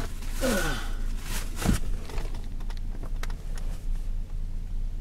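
Rummaging inside a car: knocks, clicks and rustling of clothing and seats over a steady low hum. A short falling grunt comes about half a second in, and a firmer knock about a second later.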